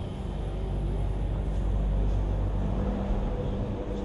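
Background sound of a busy exhibition hall: a steady low rumble and hum.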